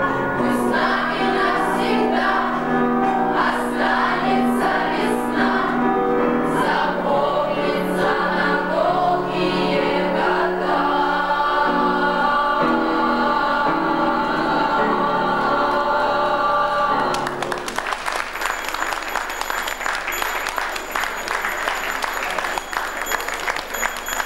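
A song with a choir of voices singing, which stops abruptly about seventeen seconds in. Applause takes over from there to the end.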